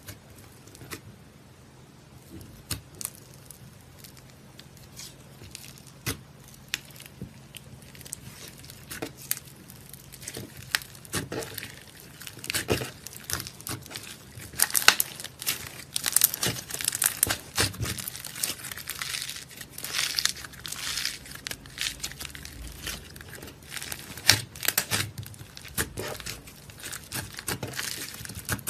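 Slime being squeezed and stretched by hand, giving irregular crackles and pops that start sparse and grow denser and louder from about a third of the way in.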